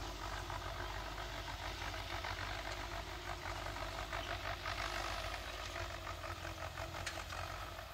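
Belarus tractor engine running steadily in the distance as it pulls a disc harrow across tilled ground.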